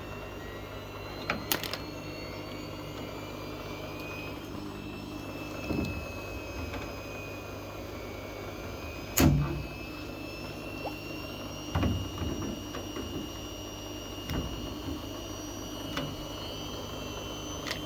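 Steady low mechanical hum with a faint high whine that drifts slowly upward, broken by scattered knocks and clicks from handling, the loudest about nine seconds in.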